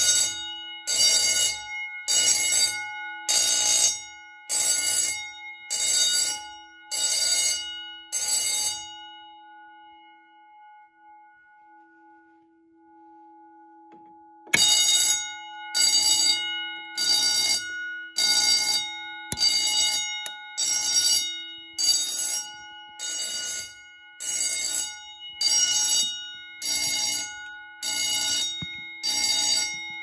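Edwards 439D vibrating fire alarm bell ringing in short pulses, about one a second. The ringing stops about nine seconds in, then starts again with a sharp click a few seconds later and keeps pulsing.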